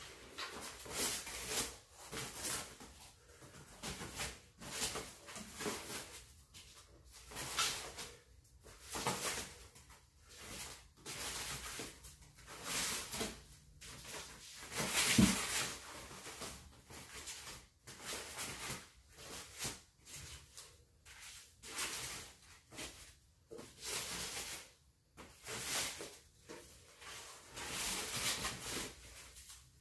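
Foam packing wrap and plastic sheeting being pulled and unwound by hand, rustling and crinkling in irregular bursts every second or so, with one louder bump about halfway through.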